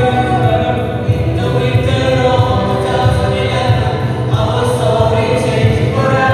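Live amplified singing: voices holding sustained notes and gliding between pitches, with no break.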